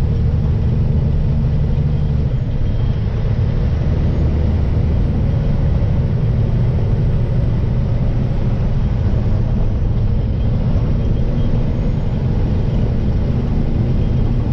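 Heavy truck's diesel engine running steadily at cruise with road noise, heard from inside the cab.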